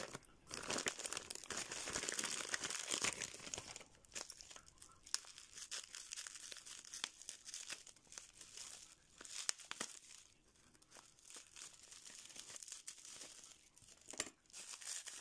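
Plastic wrapping film crinkling and crackling as it is cut open with small scissors from around a jar. The crinkling is densest in the first few seconds, then thins to scattered crackles and clicks.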